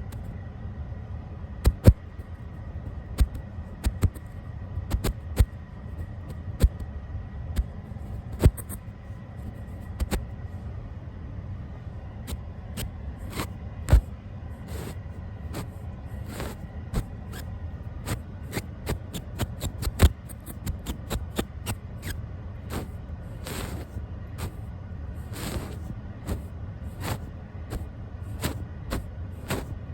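A brush stroked and tapped right against the camera lens and its microphone: soft bristle strokes with many sharp little clicks over a low handling rumble. The strokes come quicker and hissier in the second half.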